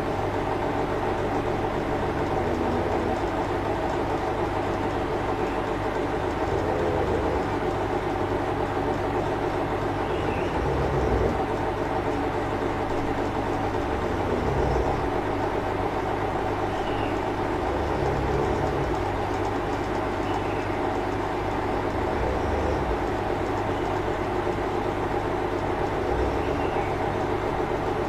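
A sleeping monkey snoring with low breaths that recur about every four seconds, under a steady rumbling background noise that is the loudest sound throughout.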